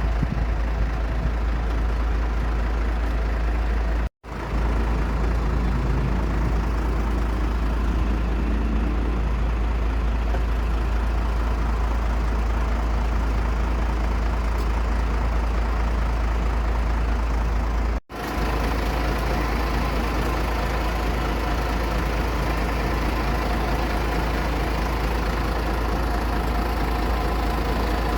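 Aircraft engine running steadily with a heavy low rumble. The sound drops out for an instant twice, about four seconds in and again near eighteen seconds.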